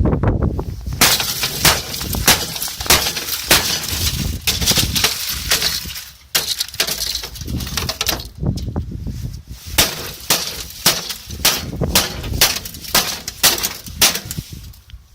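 Microwave glass being smashed with repeated blows: many sharp hits, roughly one or two a second, each breaking glass with a crash and clinking shards.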